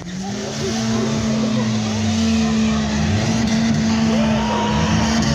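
A car's engine held at steady high revs while its tyres spin and screech through a burnout, continuous and loud from about a second in. Voices of onlookers come through over it.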